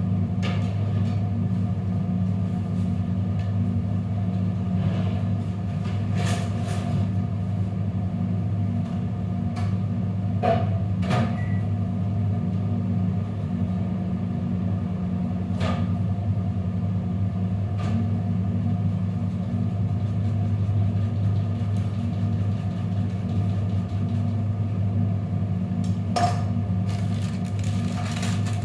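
A steady low machine hum with a few light clicks and knocks scattered through it.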